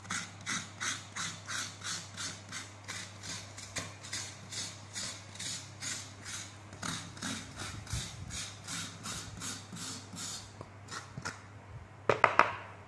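Wooden spatula scraping the inside of a coconut shell half, rhythmic rasping strokes about three a second. It ends with a few louder sharp knocks.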